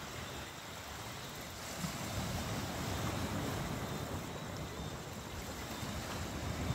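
Steady wash of sea surf and wind, with a fluctuating low rumble of wind buffeting the microphone.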